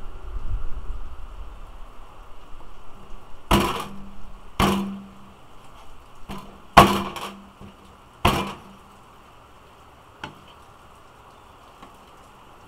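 Knife blade chopping through salted pig tail onto a bamboo cutting board: about seven sharp knocks at uneven intervals, starting a few seconds in, each with a short low ring, over a steady hiss of rain.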